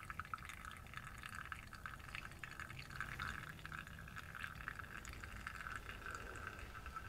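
Espresso streaming from a Flair Espresso Pro 2's bottomless portafilter into a mug as the lever is pressed down: a faint, steady pouring with small drip ticks.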